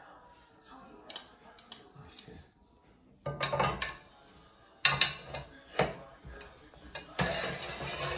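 Metal tongs clicking and scraping against a wire rack and metal pan while roast pork shoulder is pulled apart: scattered clinks, a short run of clattering about three seconds in, and sharp knocks around five seconds. Near the end a louder steady rustle begins.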